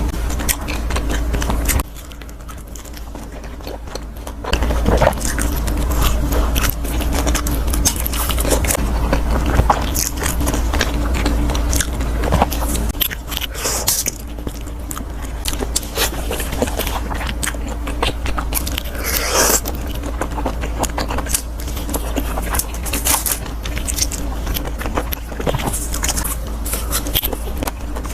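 Close-miked eating: a person biting and chewing food, with many short crunching clicks and scraping. There is a quieter pause about two seconds in before the chewing resumes.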